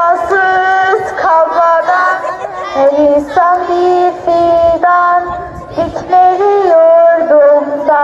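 Children singing a song together in Turkish, one of them singing into a microphone, in a melody of long held notes.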